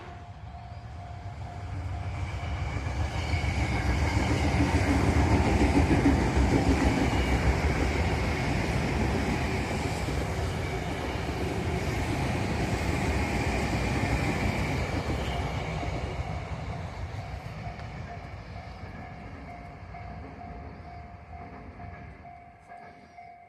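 Tobu Tojo Line train passing, with the rumble and clatter of wheels on rails. It builds to its loudest about six seconds in, then fades away slowly.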